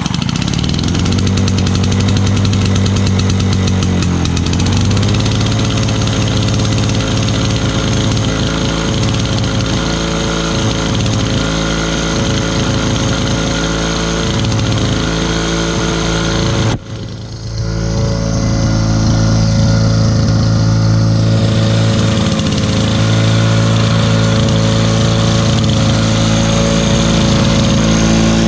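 The 2003 Lawn-Boy 10323's 6.5 hp Duraforce two-stroke engine, just started on choke, running steadily at high speed. The engine note shifts slightly about four seconds in, and the sound dips briefly about two-thirds of the way through before running on evenly. The owner judges that the mower runs excellent.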